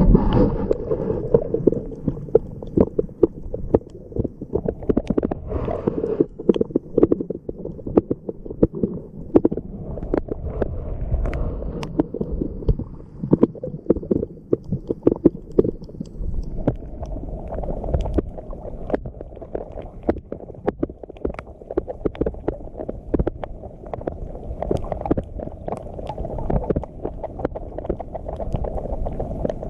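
Seawater sloshing and surging, muffled and low, broken by many sharp clicks and knocks, typical of a microphone in or against the water.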